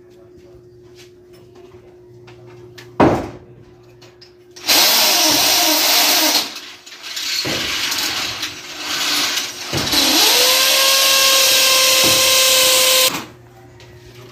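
Electric drills boring screw holes to fasten steel window grilles, in three runs, the last with a steady motor whine once it reaches speed. A single sharp knock comes shortly before the first run.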